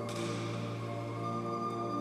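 Experimental drone music: layered, sustained tones over a steady low hum, with a sudden hissing burst right at the start that fades away.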